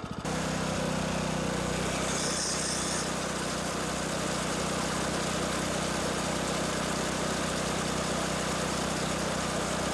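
Water spraying steadily onto a McLane reel mower's reel, rinsing off water-soluble lapping compound, over a steady engine hum.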